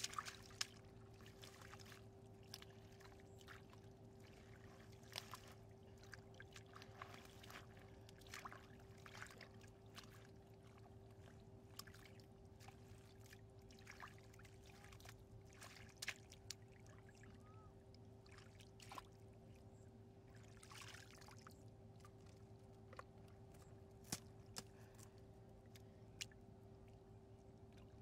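Faint, scattered splashes and sloshes of hands groping through shallow muddy water, over a steady low hum.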